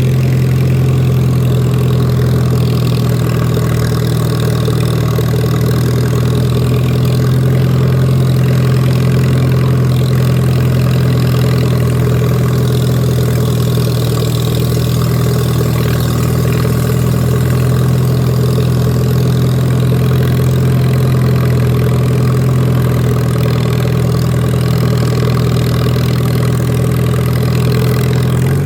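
Tractor engine running at a steady, constant speed while mowing grass: an even, unbroken drone.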